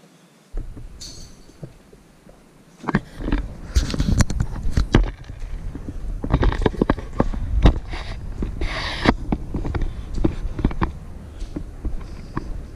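Handling noise from a camera carried by a person walking through a house. A low rumble starts about half a second in, and from about three seconds a steady run of thumps, knocks and rustles goes on.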